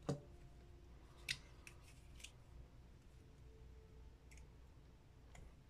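Small pliers clicking as they work a short piece of paper-clip wire: a sharp click right at the start, another about a second later, then a few lighter ticks spread through the rest.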